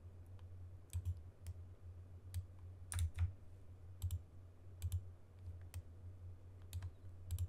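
A dozen or so irregularly spaced clicks from a computer mouse and keyboard, over a steady low hum.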